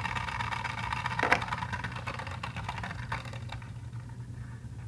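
Beyblade tops spinning in a plastic stadium: a steady whir with a few light clicks as they knock together, the whirring dying away about three and a half seconds in as the tops wind down.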